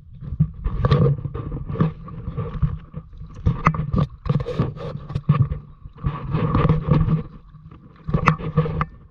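A small boat motor running steadily, its hum swelling and fading every second or two, with scattered knocks and splashes from the boat and water.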